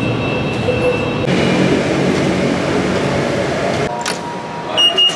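Metro train cabin noise, a steady rumble. About four seconds in it gives way to quieter station ambience, and near the end a fare gate gives a short high beep.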